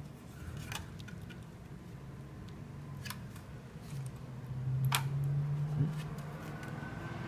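A few sharp plastic clicks and taps from small wire connectors being handled and plugged into a circuit board's header pins, over a low steady hum.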